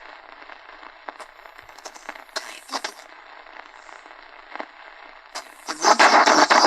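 AM radio tuned between medium wave stations: a faint hiss of static with scattered crackles and clicks. About five seconds in, a much louder rush of noise sets in.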